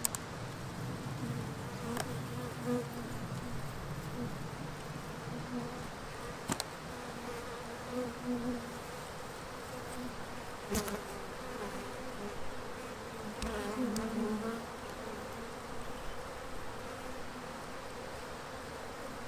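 Russian honey bees buzzing close by, a steady drone whose pitch swells and wavers as bees pass near. They are pouring out of a just-opened nuc box, stirred up and defensive. A few sharp clicks sound over it.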